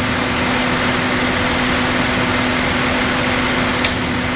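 Steady drone of a utility work truck's engine running, a constant hum under a broad rush of noise. One sharp click near the end as the metal hose clamp is handled.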